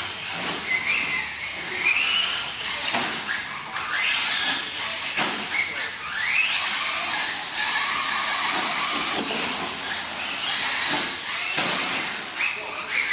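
Team Associated SC10 4x4 radio-controlled short course truck with a Novak 7.5-turn brushless motor, its motor whining in rising sweeps again and again as the throttle is worked. A steady hiss runs underneath.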